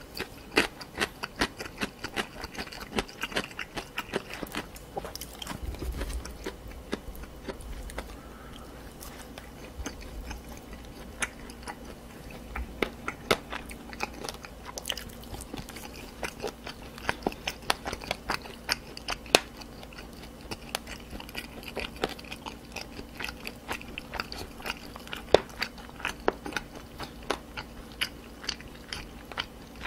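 Close-miked chewing and biting of spicy stir-fried pork cartilage (odolppyeo) and chicken feet, full of sharp wet crunches and clicks, with a few dull low thumps in the first half.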